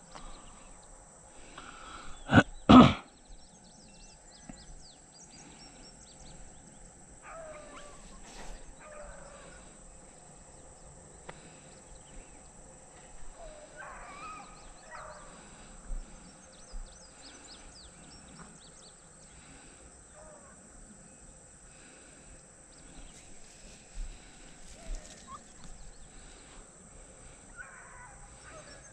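Beagles baying on a rabbit's track, a few drawn-out calls well apart, with two sharp, loud knocks about two and a half seconds in.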